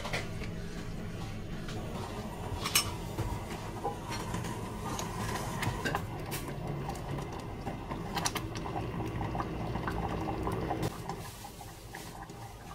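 Thick milky porridge simmering and bubbling in a stainless steel saucepan while a spoon stirs and scrapes the pot, with a few sharp knocks of the spoon against the pan, the loudest a little before three seconds in. The bubbling quietens near the end.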